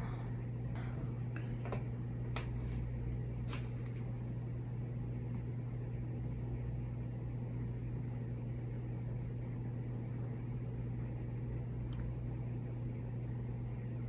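Steady low background hum of the room, with a few faint light ticks in the first few seconds.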